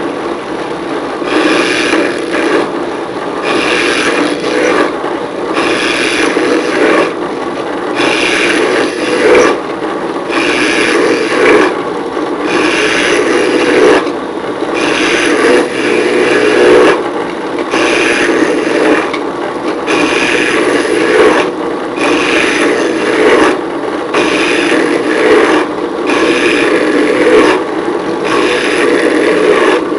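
Tool scraping strokes on wood, repeating about once a second, over a steady mechanical hum.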